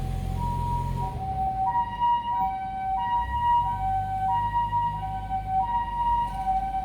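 Japanese ambulance siren sounding its two-tone hi-lo "pee-poh", a higher and a lower tone alternating about every two-thirds of a second. A low vehicle rumble runs underneath.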